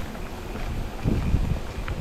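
Wind buffeting the microphone in uneven gusts of low rumble, with a few faint clicks and knocks from the moving mountain bike.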